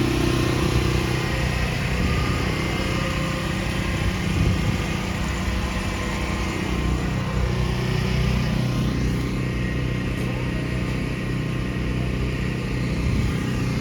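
An engine running at a steady speed, its low hum holding even throughout.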